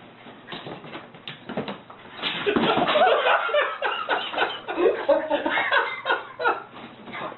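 A person laughing hard in repeated bursts, quieter at first and growing loud about two seconds in.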